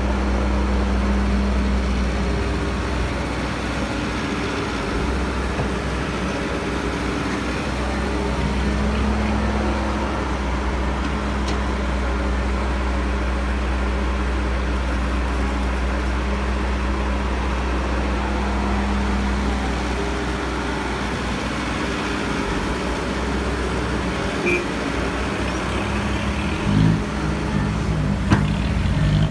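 Diesel engine of a Caterpillar E315B hydraulic excavator running steadily while it digs and loads soil, with a few short knocks near the end.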